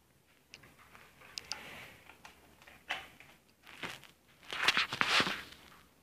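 Handling noise: scattered light clicks and short rustles, with a louder rustling stretch about four and a half seconds in.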